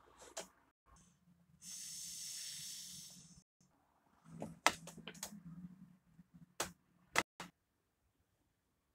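A hiss lasting about two seconds, then a scatter of sharp taps and clicks from a hand handling the sheet of drawing paper.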